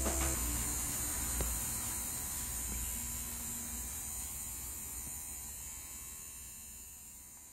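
A steady electric hum with a hiss above it, slowly fading out.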